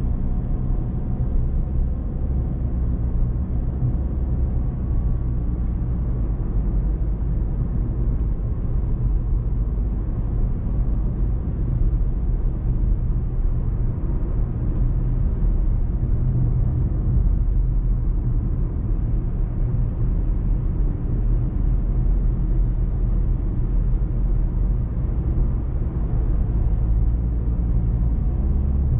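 A car driving at a steady pace: an even, low rumble of engine and road noise.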